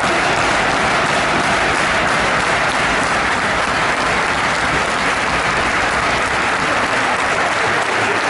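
Large football stadium crowd cheering and applauding, a steady, loud mass of voices and clapping with no break.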